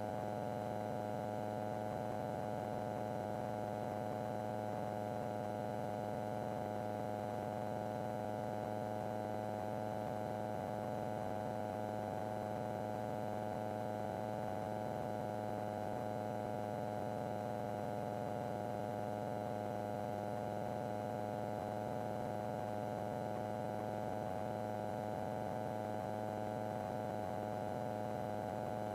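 Steady drone of a light aircraft's engine and propeller heard in the cockpit at cruise power in the traffic pattern, an even hum that does not change.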